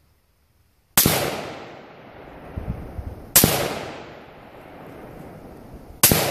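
Three semi-automatic rifle shots, about two and a half seconds apart, each followed by a long echo that dies away.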